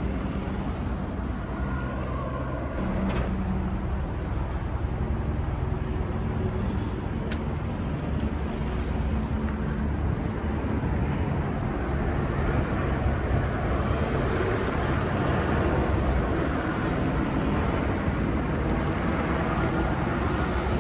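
Downtown street traffic: cars and other vehicles passing with engines running, a steady rumbling wash that grows a little louder in the second half.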